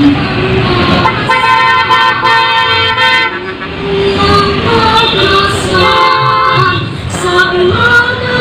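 Vehicle horns honking as a motorcade passes: a long blast about a second in and another around six seconds in. Engine and road noise and music run underneath.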